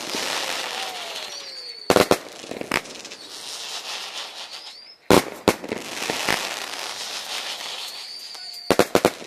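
Fireworks display: three volleys of sharp bangs about three seconds apart, each just after a short rising whistle, with dense crackling from crackle-effect star shells in between.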